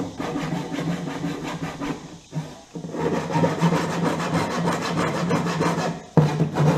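Flush cut hand saw cutting through the wooden top of a chest of drawers in quick back-and-forth strokes, pausing briefly about two and a half seconds in.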